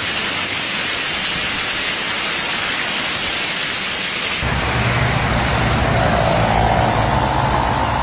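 Heavy storm rain and wind: a loud, steady hiss of pouring rain. About halfway through, a deep rumble of gusting wind on the microphone joins it.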